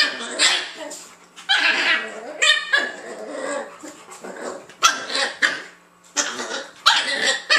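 Two dogs play-fighting: a large white shepherd dog and a puppy give a run of short barks and play growls, with a high yip about two and a half seconds in.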